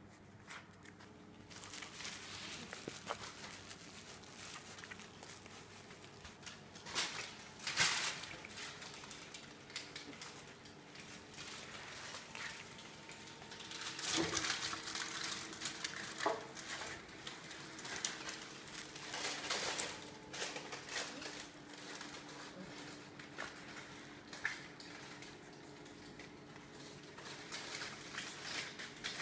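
Puppies scuffling and tugging at a plush fabric toy on a foam mat: irregular rustling of cloth, patter of small paws and light knocks, with louder flurries now and then.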